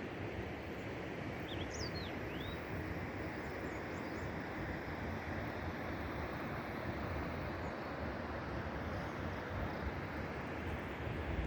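Steady rushing of falling water from a waterfall, with a few short high bird chirps about two seconds in.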